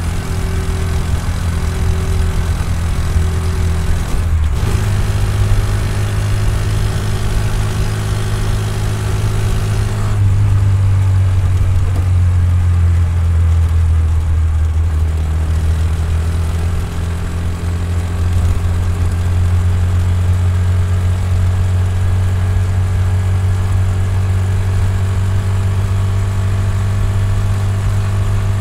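Honda Super Cub C125's single-cylinder four-stroke engine and exhaust running steadily while riding, picked up by a recorder mounted on the bike. The engine note changes briefly about four seconds in and again at about ten seconds, with less hiss after.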